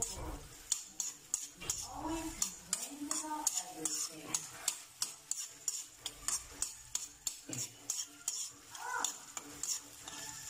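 A metal spatula stirring and scraping around an aluminium wok, with repeated clinks a few times a second, while chopped onion and garlic sizzle in hot oil.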